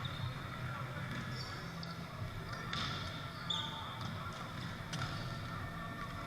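Volleyball game in a gymnasium: rubber-soled court shoes squeaking on the hardwood floor, a few sharp hits of the ball, and a steady murmur of the gym underneath.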